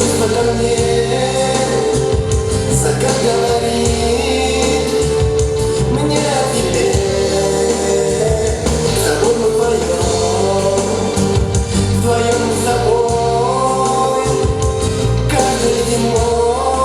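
Pop song with singing over backing music.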